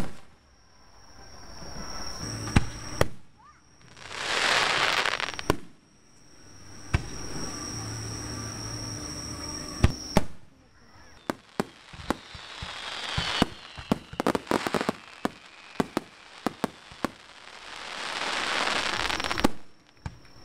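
Aerial fireworks display: loud booms of shells bursting, a quick run of many sharp pops near the middle, and two long swelling hisses.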